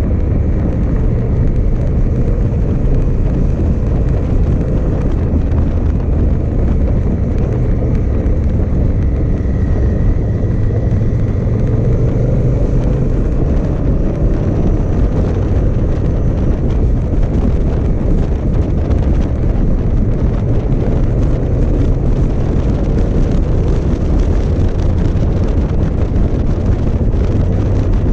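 Motorcycle riding at steady speed: wind rushing over the camera microphone over the steady running of a 2018 Honda Africa Twin DCT's parallel-twin engine.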